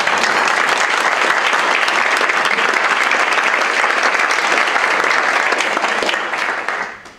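Audience applauding: many people clapping together, loud and steady, then dying away near the end.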